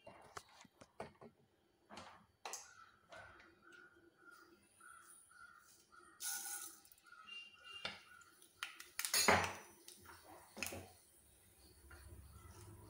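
Mustard seeds spluttering in hot oil in a kadai: scattered sharp pops, with two louder sizzling bursts about six and nine seconds in.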